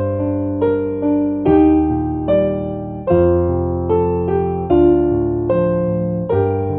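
Background music: a slow keyboard piece, with notes and chords struck about every half second, each fading before the next.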